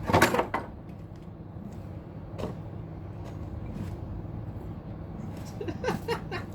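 Microwave oven running with a steady mains hum while lithium batteries burn inside it: a loud burst of crackling at the start, then a few smaller pops and crackles near the middle and end.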